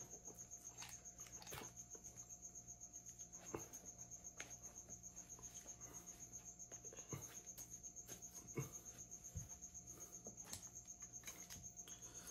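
A cricket trilling steadily in a high, evenly pulsing tone, with scattered faint clicks and cracks from crab shells being handled and picked apart.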